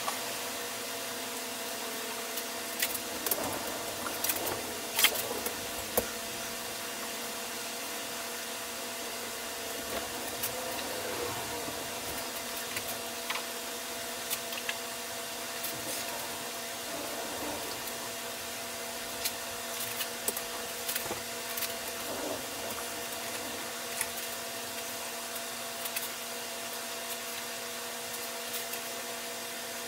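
Scattered clicks and knocks of plastic CPVC pipe and fittings being handled and fitted together, most of them in the first six seconds, over a steady hum.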